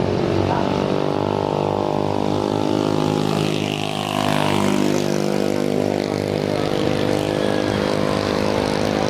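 Jet airliner's engines running as it passes: a steady, many-toned drone whose pitch bends slightly downward about three to four seconds in.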